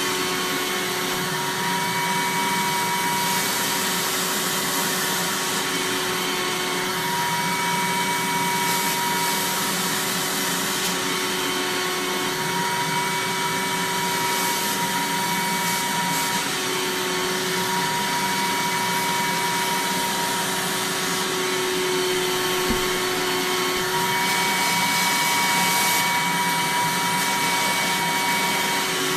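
Eureka Mighty Mite 3112A canister vacuum cleaner running steadily: a rush of air with a motor whine whose pitch wavers slightly, and hiss that rises and falls a little.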